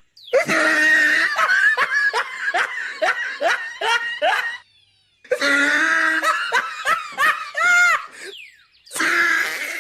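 A cartoon character's hearty belly laugh, a run of pitched 'ha-ha-ha' pulses about two to three a second. It comes in two long bouts with a short break between them, then a brief burst near the end.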